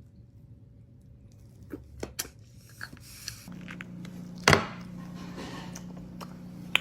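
A toddler eating corn on the cob: scattered small knocks and clicks, then one sharp, loud knock about halfway through. A steady low hum comes in a little before it.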